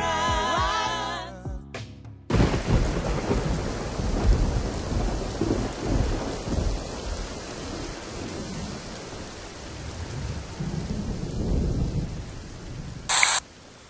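Thunderstorm: steady rain with rumbles of thunder, starting about two seconds in after a gospel song ends.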